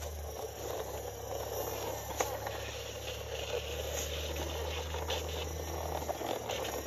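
Plastic toy crane truck pushed by hand along a concrete ledge, its plastic wheels rolling with a steady gritty rumble, with a few light clicks.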